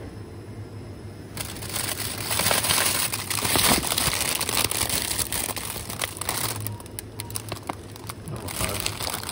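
Plastic bag of frozen breaded chicken fillets crinkling as it is handled and lifted out of a freezer. It starts about a second in, is loudest in the middle, then thins to lighter rustles over a low steady hum.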